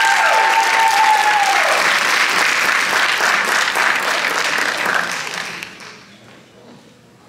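Audience applauding, a dense clapping that dies away about five to six seconds in. Over the first second and a half, one long high tone is held above the clapping and then drops away.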